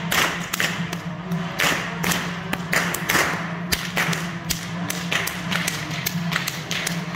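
A long Swiss goat-whip (Geissle) cracking over and over, about two to three sharp cracks a second, above a steady low drone.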